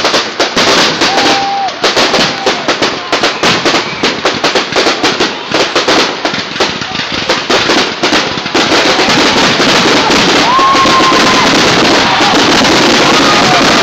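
Fireworks going off: a rapid series of sharp cracks and bangs that merges, about two-thirds of the way through, into a continuous dense crackle, with a few short whistles over it.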